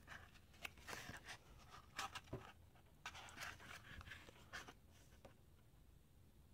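Glossy pages of a hardback art book being turned by hand: faint paper rustling and flicks, in two spells over the first five seconds or so.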